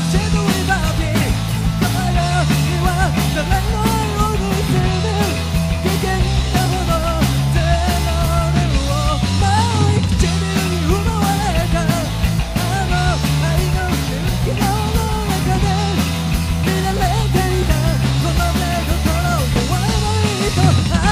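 Rock band playing live: electric guitars, bass and a drum kit, with a male singer's voice carrying the melody over a steady beat.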